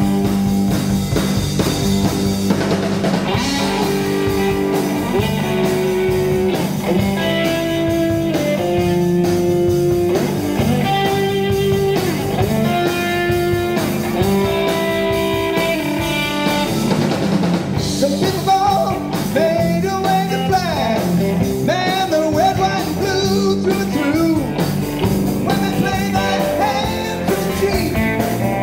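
Live rock trio playing an instrumental passage: an electric guitar lead with long held notes and pitch bends over electric bass and drum kit.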